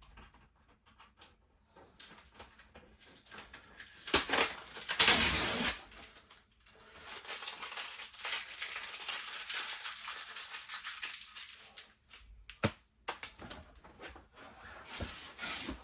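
Hands rummaging through a box of toys: rustling and crinkling with scattered knocks and clatters, loudest about four to six seconds in.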